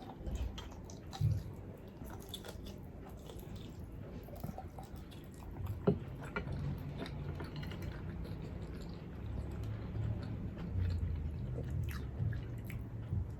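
A person chewing and biting food, wet and soft with small clicks, getting a little louder in the second half; one sharper click about six seconds in.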